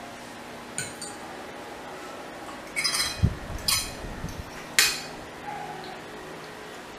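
Forks clinking and scraping on ceramic plates of noodles: a few separate sharp clinks, with a dull knock on the table about three seconds in.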